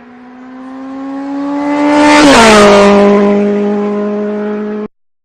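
Car engine passing by at speed: the note grows louder, drops in pitch as it passes about two seconds in, then cuts off suddenly near the end.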